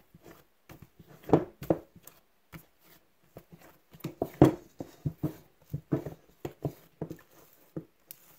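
A fist punching down risen bread dough in a stainless steel bowl: a run of soft, irregular thuds and squishes, the loudest about one and a half and four and a half seconds in.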